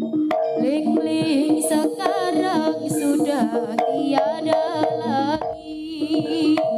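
Live Javanese jaranan band music: drum strokes and ringing gamelan-style metal percussion under a wavering, ornamented melody, with a brief dip in loudness near the end.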